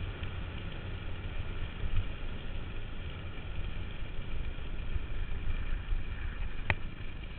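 Steady rush and rumble of a bicycle riding along an asphalt path: tyre noise on the pavement and air rushing past the bike-mounted camera's microphone. A single sharp click or knock comes near the end.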